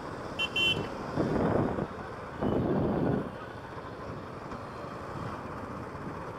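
Road and wind noise from riding a motorcycle in traffic, with two quick high horn beeps about half a second in and two louder swells of road noise soon after.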